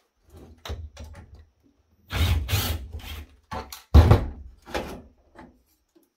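A series of metal clunks and scrapes as the long metal back support bracket is worked loose and lifted off a network switch module's sheet-metal chassis. The loudest clunk comes about four seconds in.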